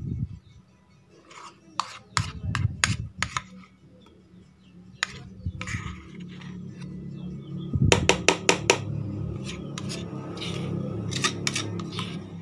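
A spoon clinking and scraping against a mixing bowl while thick cake batter is spooned out. There are a few clicks early, then a quick run of about half a dozen taps a little past the middle, over a low steady hum.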